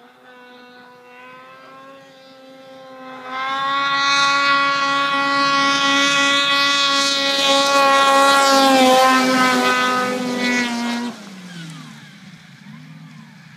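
A snowmobile's two-stroke engine, an Arctic Cat ZR 600, running at high revs while it skims across open water. It grows louder as it comes closer, holds at full throttle, then drops sharply in loudness and pitch about eleven seconds in as it passes, and fades off.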